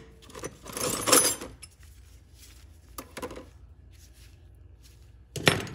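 Metal hand tools clinking and rattling as they are picked up and set down on a wooden workbench, with the loudest clatter near the end.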